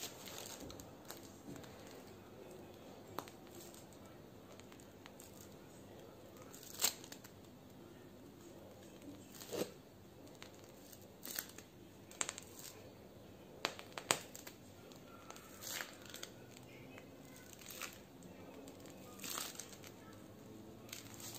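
Faint, irregular crinkling and crackling of a piping bag squeezed in the hands while piping leaves, a short crackle every second or two.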